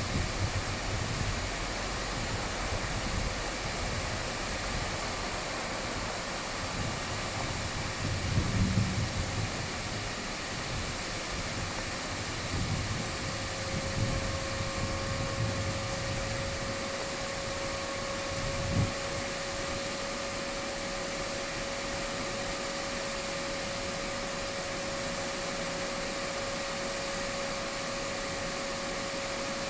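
SM42 diesel shunting locomotive running slowly: a steady hum and rush of its engine, with a low rumble in the first half and a couple of short knocks, the sharper one a little past halfway. About halfway through, a steady high whine comes in and holds.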